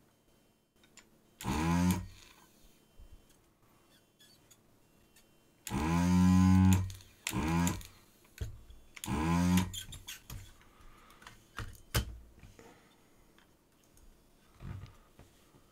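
A Pro'sKit SS-331H desoldering gun's vacuum pump switching on in four short bursts of low, steady humming as it sucks molten solder from screw-terminal pins. A few sharp clicks follow.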